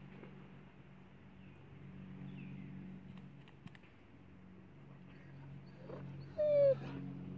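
A lavender Ameraucana chicken gives one loud, short squawk about six seconds in, over a low steady hum.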